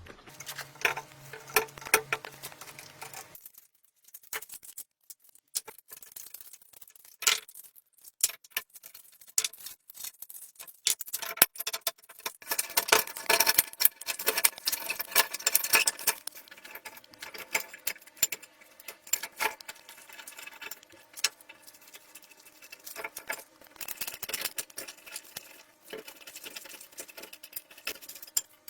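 Irregular clicks, taps and short scrapes of hand work on a weighing scale being taken apart and restored, busiest in the middle.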